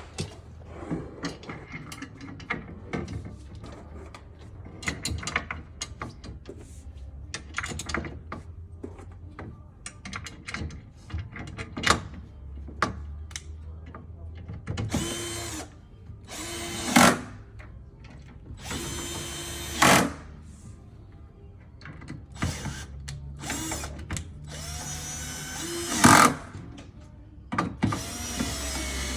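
Cordless drill-driver running in short bursts, several times in the second half, driving screws into a bed side rail to fix the gas lift arm bracket. Before that, many small clicks and knocks of screws and parts being handled.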